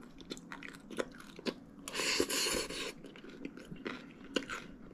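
Close-up chewing with many short wet mouth clicks, and a louder crunching stretch about two seconds in, like a mouthful of raw cabbage salad being chewed.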